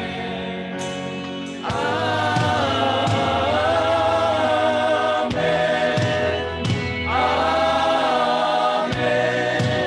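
Worship singers repeating the 'Amen' refrain of a gospel song over sustained instrumental chords, with the voices coming in about two seconds in.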